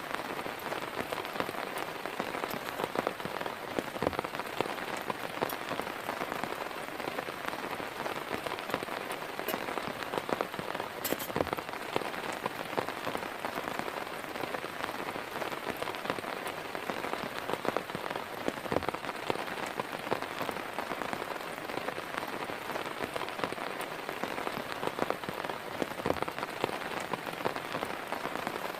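Heavy rain falling steadily, with many individual drops striking close by.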